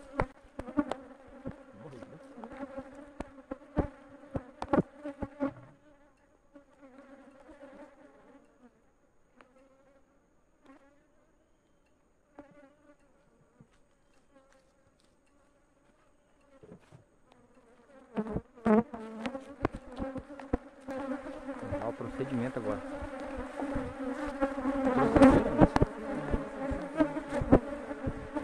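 Honeybees buzzing around an opened hive, a steady hum with a few knocks as brood frames are put back into the wooden hive box. The buzz dies down through the middle and comes back louder near the end.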